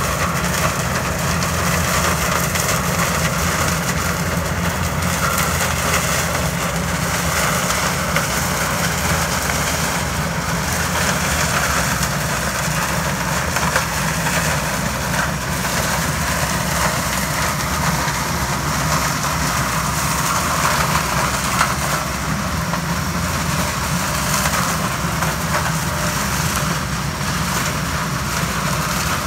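Yanmar HS 2000 sugarcane harvester running steadily at work: a continuous heavy engine drone with a broad rushing mechanical noise over it.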